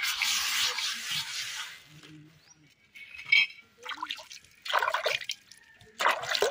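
Scraping and scrubbing the gritty surface of an iron griddle with a knife blade and hand for about two seconds, then hands splashing and scooping water in a metal bucket, with a few short splashes near the end.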